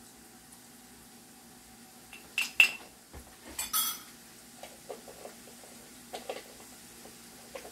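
Metal kitchen utensils and dishes clinking: two sharp ringing clinks about two and a half seconds in, a brief clatter a second later, then a few lighter taps.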